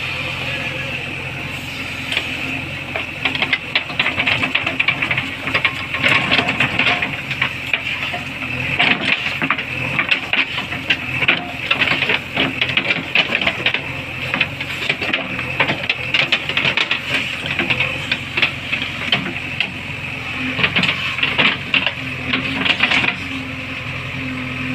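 JCB backhoe loader's diesel engine running steadily with a constant high whine, overlaid from about two seconds in until near the end by dense, rapid clicking and rattling from the working machine.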